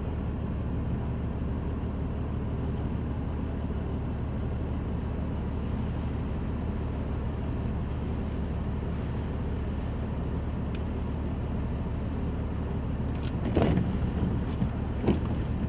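Steady noise of heavy rain and rushing floodwater over a low, steady vehicle engine hum, with a couple of brief knocks near the end.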